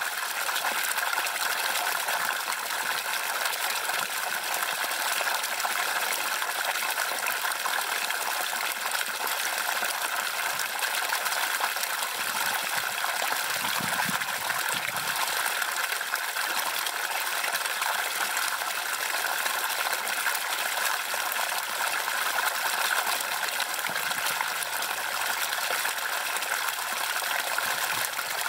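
Spring water gushing steadily from a pipe spout and splashing into the water below.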